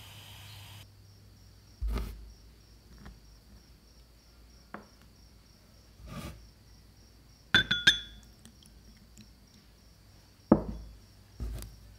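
Small glass bowl and ceramic dish knocked and set down on a cloth-covered table: several separate knocks, with a ringing clink of ceramic against glass about halfway through.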